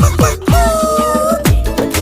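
Upbeat background music with a steady beat and falling bass drum hits; one long held note runs through the middle, and the track cuts off at the very end.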